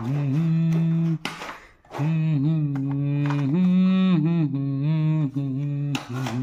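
A man's voice singing a slow melody without accompaniment, in long held notes that bend and glide, in a few phrases broken by short pauses.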